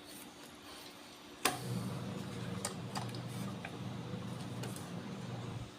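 Light clicks and ticks of a vintage Fluke 8024A multimeter's small parts being handled during a teardown, with one sharper click about a second and a half in. A steady low hum runs underneath from that click on.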